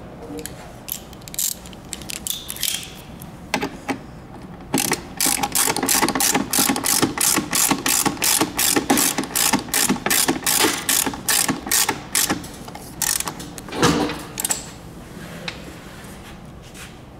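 Hand ratchet clicking in quick strokes, about four clicks a second, while a bolt on a seat's hip guard mount is tightened. There are a few scattered clicks before the main run and a single knock near the end.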